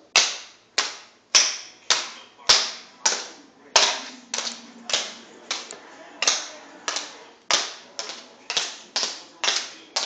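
Tap shoes striking a tile floor in a steady rhythm: sharp clicks about two a second, quickening toward the end, each with a short ring from the hard room.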